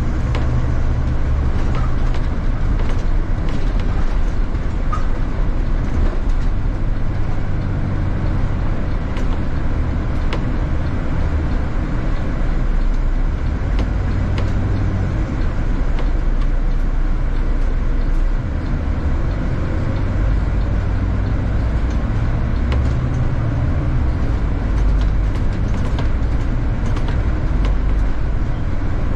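City bus under way: a steady low engine drone whose pitch shifts now and then with speed, with scattered small clicks and rattles.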